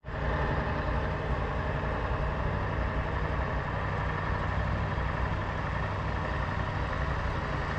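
Heavy truck engine running steadily at an even pitch, from a truck loaded with concrete.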